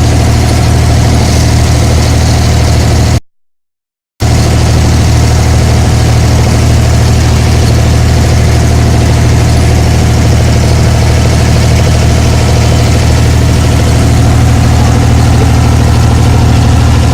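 Engine of an abra water taxi running steadily on board during a creek crossing: a loud, even low drone. The sound cuts out completely for about a second about three seconds in, then carries on unchanged.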